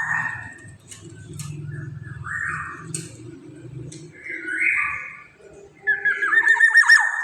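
Black-naped oriole singing: a quavering, warbled phrase at the start and again about six seconds in, with two harsh, nasal calls between them.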